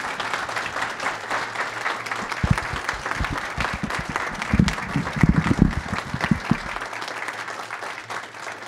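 A roomful of people applauding, the clapping thinning and fading toward the end, with a few low thumps in the middle.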